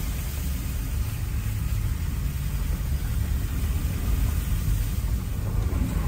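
Vehicle driving along a wet, muddy dirt road, heard from inside the cab: a steady low rumble of engine and tyres.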